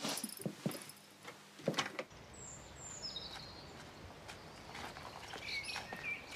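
A few short knocks and clicks, the loudest a thump about two seconds in. Then a steady outdoor hum with small birds chirping in short high calls, twice.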